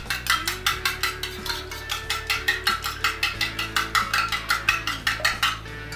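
An egg being beaten with a spoon in a small stainless steel bowl: quick, even clinks of metal on metal, about five a second.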